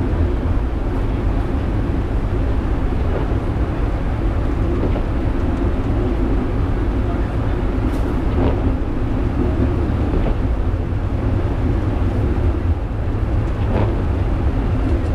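Penang Hill funicular railway car running up its track, heard from the cab: a steady rumble and hum, with an occasional faint click.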